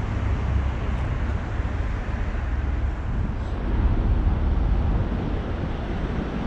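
Ottobock B500 power wheelchair rolling along a paved path: a steady low rumble of tyres on the surface mixed with wind buffeting the chest-mounted microphone.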